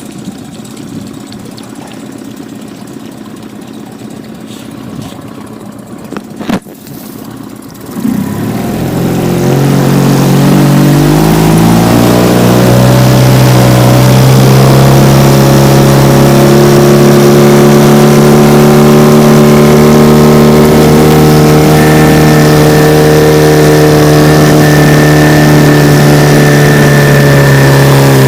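HDX F 9.8 BMS outboard motor: after a quieter stretch and a sharp click, the engine speeds up about eight seconds in and then holds a steady, loud speed. About two-thirds of the way through, a steady high squeal joins the engine note. This is the extraneous 'cricket' squeak the motor makes at 3800–4500 rpm, which the owner thinks comes from the driveshaft housing of the lower unit.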